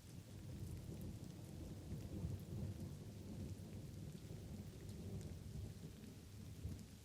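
A low rolling rumble of thunder swells about a second in, is loudest a couple of seconds later, then slowly eases. Under it runs the steady hiss of light rain with scattered drops.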